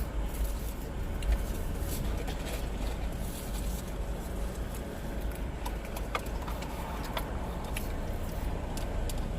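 Steady low rumble of a car heard from inside the cabin, with a few faint clicks scattered through it.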